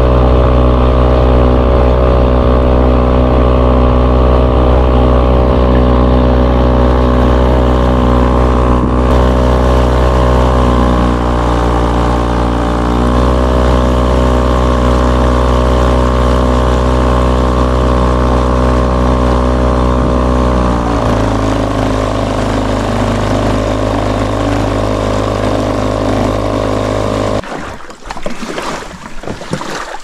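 A motor engine running at a steady speed. Its pitch sags and recovers about a third of the way through and settles a little lower about two-thirds through, and the engine sound stops abruptly near the end.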